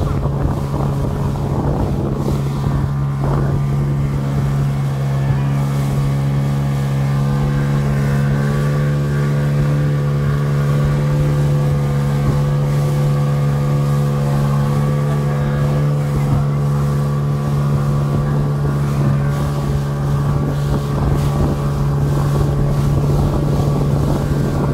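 Speedboat engine running at a steady speed, a constant low drone that holds the same pitch throughout, with wind buffeting the microphone.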